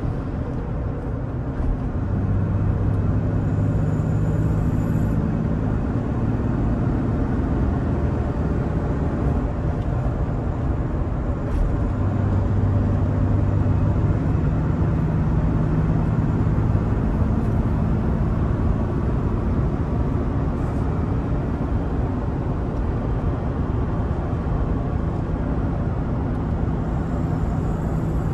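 Cabin sound of a 2003 Toyota Tacoma pickup driving on the road: steady engine and tyre noise. Near the start the level dips briefly during a shift of the five-speed manual gearbox, and the engine note then settles lower.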